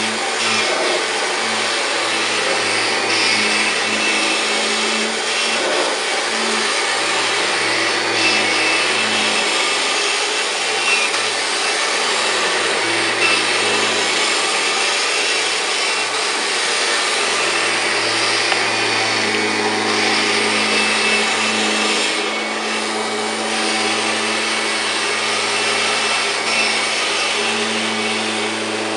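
1999 Kirby G5 upright vacuum cleaner running steadily with a constant motor hum, its beater brush going over carpet as it is pushed back and forth.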